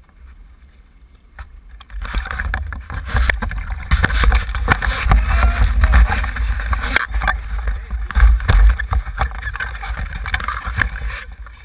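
Splashing water and loud, irregular knocking and rubbing of a landing net and its metal handle as a hooked fish, a spring chinook salmon, is netted and lifted into a boat. It starts about two seconds in, with a heavy low rumble of handling noise throughout.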